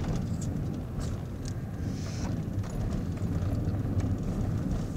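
Steady low rumble of a car driving, heard from inside the cabin, with a few faint ticks.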